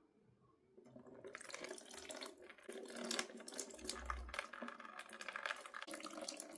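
Lukewarm salt water from a neti pot streaming out of a nostril and splashing down, starting about a second in and running on steadily.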